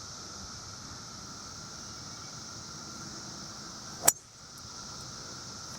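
A hybrid golf club striking a ball: one sharp, short click about four seconds in, over steady high insect chirring.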